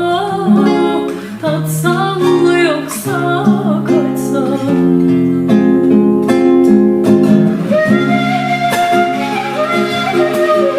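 Acoustic guitar accompanying a wavering melody line with vibrato, with a long held note near the end.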